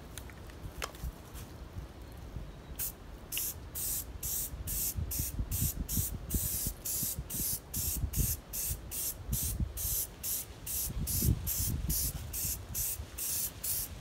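Aerosol can of spray-on truck bed liner coating spraying in short hissing bursts, about two a second, starting about three seconds in.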